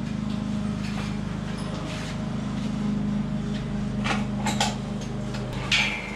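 Clanks and knocks from a welded steel box-section frame being shifted on a trailer and a jack stand being set under it: a couple of sharp metal knocks about four seconds in and a louder one near the end, over a steady low hum.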